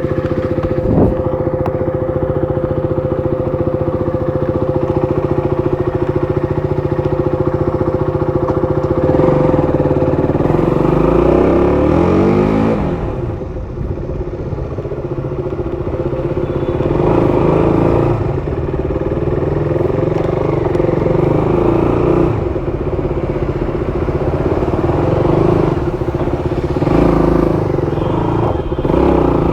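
KTM RC200's single-cylinder four-stroke engine running at a steady speed for about nine seconds, then revving up and down repeatedly, the pitch climbing and dropping several times.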